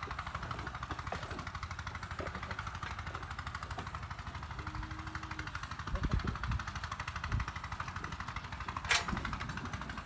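A machine running steadily nearby, a low rumble with a fast, even pulse. A short steady tone sounds about five seconds in, and a sharp click comes near the end.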